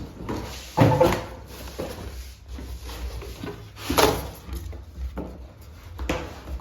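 Cardboard sound bar box being handled and pulled open: a series of knocks, scrapes and rustles, the loudest about a second in and again about four seconds in.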